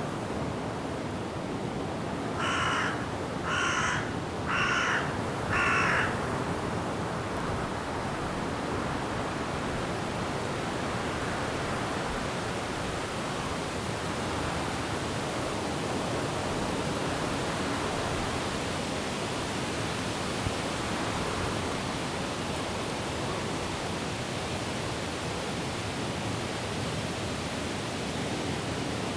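Steady rush of wind and rain through forest trees. A few seconds in, a bird gives four calls in quick succession, about one a second, each under half a second long.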